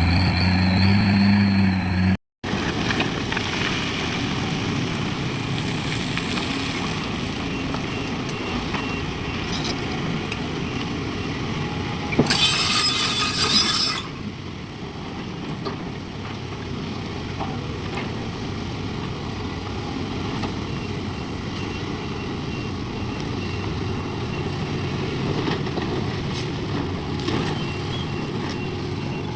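Heavy diesel machinery running steadily, with a short pitched tone at the start and a loud hiss lasting about two seconds near the middle.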